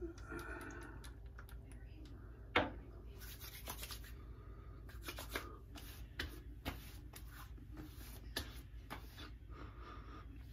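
Hands rubbing and patting aftershave splash onto a freshly shaved face, a run of soft rubbing and light slaps. One sharp click about two and a half seconds in.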